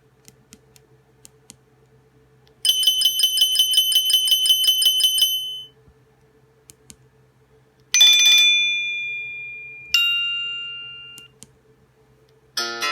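Nokia Asha 302 ringtones and alert tones. First a high, rapidly pulsing ring tone lasts about three seconds. Then come two single chime tones, about two seconds apart, each ringing out and fading. A new melodic ringtone starts near the end.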